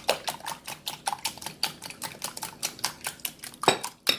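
Eggs being beaten with a whisk in a bowl: rapid, even clicking of the whisk against the bowl, with one harder knock near the end.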